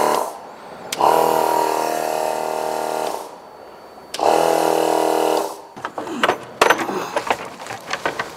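A twin-cylinder 12-volt air compressor running in short runs: it stops just after the start, runs again for about two seconds, then again for about a second and a half, each time a steady motor buzz with a hiss. After that come scattered clicks and knocks of parts being handled.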